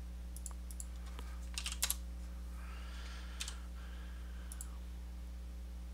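A few sharp computer keyboard and mouse clicks, with a quick cluster of them a little under two seconds in, over a steady low electrical hum.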